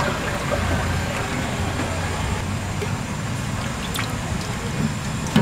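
Cooking oil poured in a steady stream from a large tin into a cast-iron frying cauldron already partly full of oil, splashing into the oil, with street traffic noise behind.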